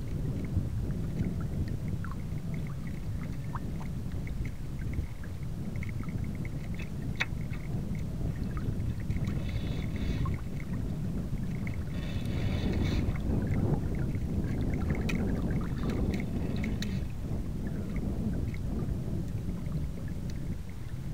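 Wind rumbling on the microphone of a small sailboat under sail, with water rushing and splashing along the hull; a few brief hissy splashes come about halfway through.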